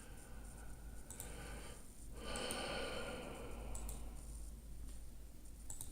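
A person breathing close to the microphone: a soft breath about a second in, then a longer, louder exhale lasting a couple of seconds, with a few faint clicks.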